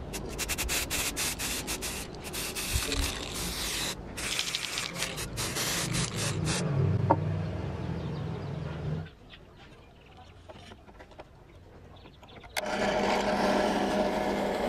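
Aerosol spray-paint can hissing in quick repeated spurts for the first six seconds or so. Near the end, a benchtop drill press fitted with a hole saw starts up and runs steadily.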